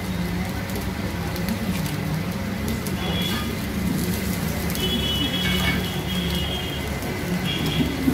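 Omelette paratha sizzling on a flat iron griddle (tawa), with a metal spatula scraping the griddle as it is folded, over a low murmur of voices.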